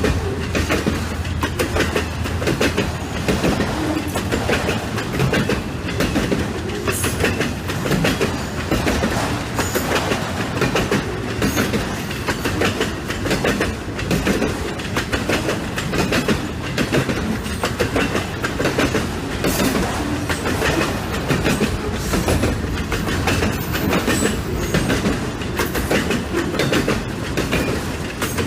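Freight train of auto-rack cars rolling past, the wheels clicking and clattering over the rails in a steady, continuous clickety-clack.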